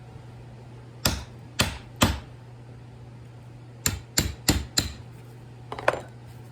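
Hammer blows on a punch, driving the copper winding wire out through a transformer's core: three sharp strikes, a pause, then four more in quick succession, and a couple of lighter taps near the end.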